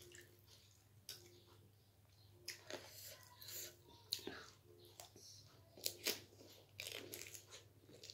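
A person chewing a crunchy snack: irregular crisp crunches, fairly quiet, with softer chewing between them.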